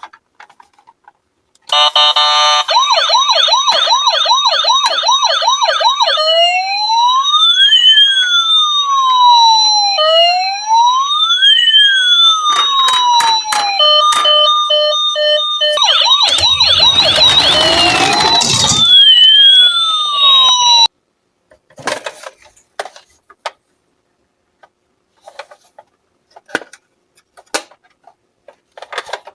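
Emergency-vehicle siren sound running through several patterns: a fast warble, then slow rising-and-falling wails, a short stretch of steady stepped tones and a patch of harsher noise with the wail under it. It cuts off suddenly about two thirds of the way through, leaving light clicks and rattles of toy cars rolling.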